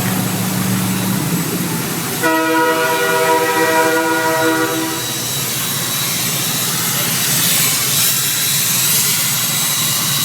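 Air train horn sounding one chord blast of several tones together, lasting about three seconds, over steady vehicle noise.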